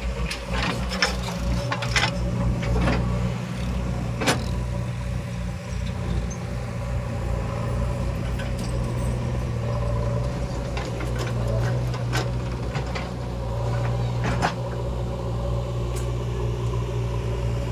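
Diesel engines of a JCB backhoe loader and a farm tractor running steadily, with several sharp knocks in the first few seconds as the backhoe bucket dumps soil and clods into a tractor trolley, and a few more knocks about eleven to fifteen seconds in.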